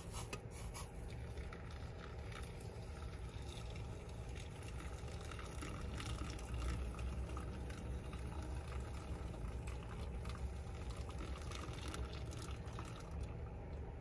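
Hot water poured gently from a small metal cup onto coffee grounds in a pour-over filter cone, trickling through into a glass carafe; faint and steady.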